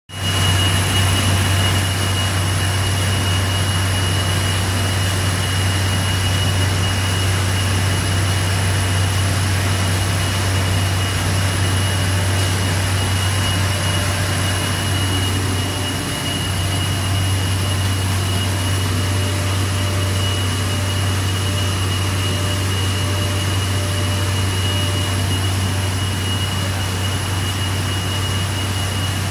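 Three-layer coextrusion blown-film line running: a steady loud machine drone with a strong low hum and two thin, steady high whines over it.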